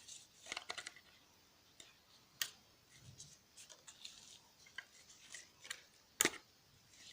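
Faint, scattered clicks and small scrapes of plastic and metal as a smartphone's headphone jack is worked loose from the phone's board, with a sharper snap about two and a half seconds in and another near the end.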